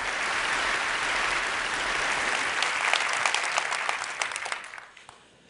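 Audience applauding, a dense steady clapping that thins into a few separate claps and dies away about five seconds in.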